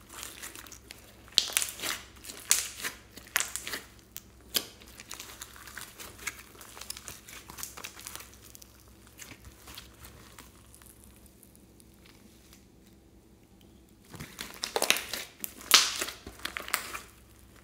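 Hands squeezing, stretching and folding a large glob of glossy slime, giving wet, clicky crackling and popping as air pockets burst. The crackles come in clusters, die away to a quiet stretch, then pick up again near the end.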